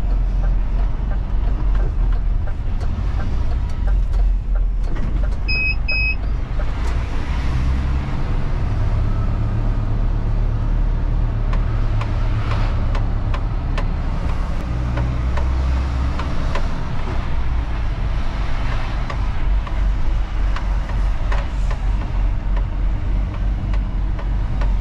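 Diesel engine of a refuse truck running as it is driven, heard from inside the cab. Its low drone steps up and down in pitch several times. Two short high beeps sound about six seconds in.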